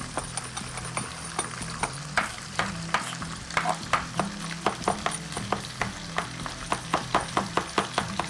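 Chef's knife chopping ginger and garlic on a wooden cutting board: a quick, even run of knocks, about four a second, over the sizzle of chicken frying in the pan.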